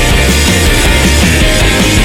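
Loud rock background music with a driving beat and distorted guitars.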